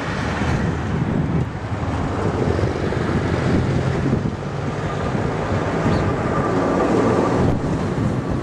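Airbus A380 jet engines running as the airliner rolls along the runway: a loud, steady, deep rumble with a faint steady whine joining for a couple of seconds past the middle, and wind buffeting the microphone.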